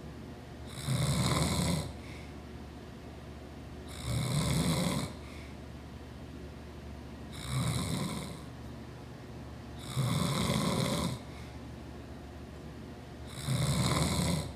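A man snoring loudly in his sleep: five snores about three seconds apart, each lasting about a second. A steady low hum runs underneath between the snores.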